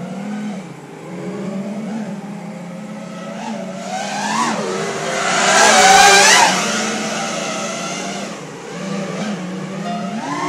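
5-inch FPV racing quadcopter with Emax RSII 2306 2400kv motors and tri-blade props, its motors whining and changing pitch with the throttle. About five seconds in, a hard throttle punch sends the whine sharply up in pitch and loudness before it eases back.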